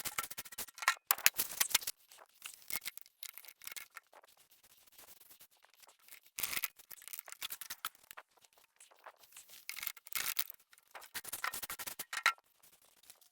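Bursts of short scraping strokes from a hand tool working concrete, in irregular runs with pauses between them.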